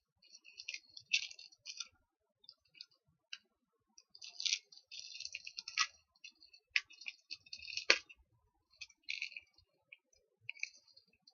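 Plastic packaging crinkling and crackling in irregular bursts as a small mail packet is handled and opened, with one sharper snap about eight seconds in.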